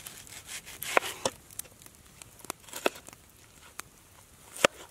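Wood campfire crackling, with scattered sharp pops at irregular intervals, the loudest near the end. Under it, a knife slices through an onion held over a metal pan.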